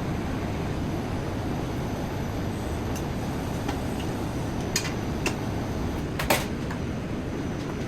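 Steady rushing hiss of a TIG welding arc on stainless steel, with a few sharp clicks scattered through the second half.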